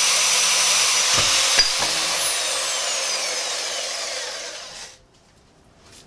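Metal-cutting power saw running and then winding down: a loud hiss with a faint falling whine that fades out about five seconds in.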